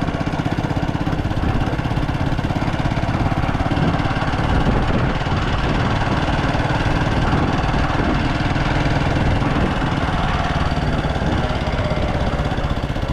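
A vehicle's engine running steadily while on the move, a dense even drone that holds the same pace throughout.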